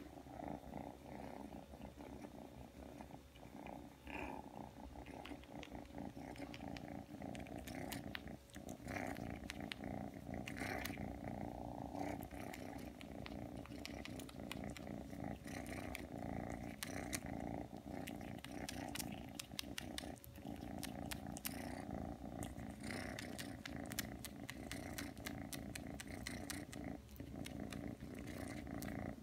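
Three-month-old ragdoll kitten purring steadily while it kneads and suckles on a blanket, with many small, quick sucking clicks over the purr.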